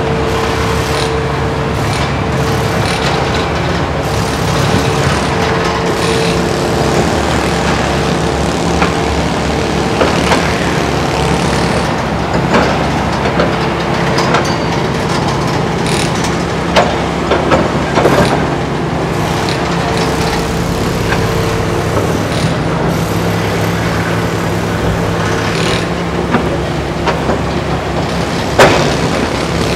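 Kobelco SK350 hydraulic excavator's diesel engine running steadily while it digs sand, with a pitched hum that comes and goes. Scattered sharp knocks, the loudest near the end.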